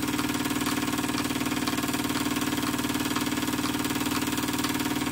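EngineDIYShop Retrol SE-02 model steam engine running steadily with a fast, even beat as it drives a small OKMO P71 water pump.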